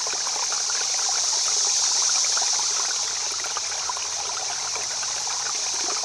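Steady running water, a trickling, stream-like rush with fine crackling detail.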